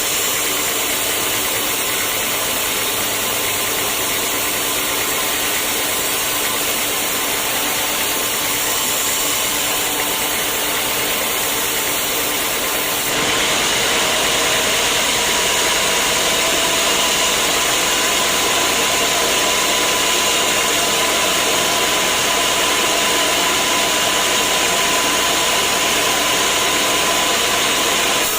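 Sawmill machinery running with a steady mechanical noise and faint humming tones. About halfway through, the sound changes suddenly to a brighter, slightly louder noise with a clearer hum.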